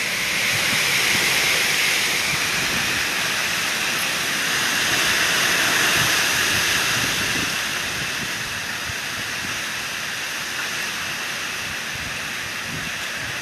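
Heavy rain pouring down in gusty wind: a steady hiss that builds over the first few seconds, peaks around six seconds in, then eases a little, with uneven low buffeting underneath.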